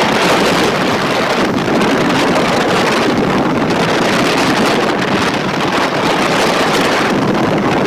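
Steady rush of wind on the microphone with road noise from a vehicle moving along a wet road.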